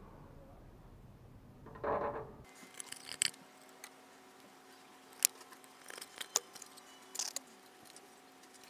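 A short rustle about two seconds in, then scattered light clicks and clinks of small metal objects being handled, over a faint steady hum.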